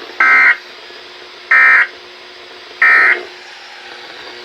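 Three short bursts of digital alert data tones, about a third of a second each and a little over a second apart: the end-of-message signal that closes an emergency alert broadcast.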